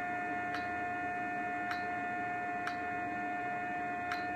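Koolance EXC-800 recirculating water chiller running with a steady hum and a clear high tone, its pump set to its top speed. Four light clicks spaced about a second apart come from its front-panel menu buttons being pressed.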